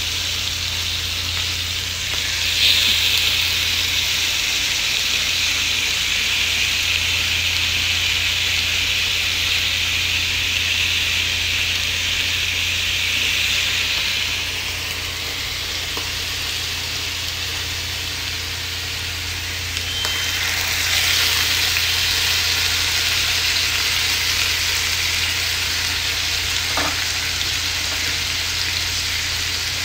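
Salmon fillets sizzling in a hot grill pan: a steady frying hiss that swells louder about two seconds in and again about twenty seconds in, with a steady low hum underneath.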